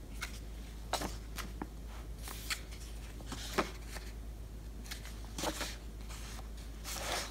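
Pages of a softcover paper workbook being turned by hand: a series of short papery flicks and rustles at irregular intervals.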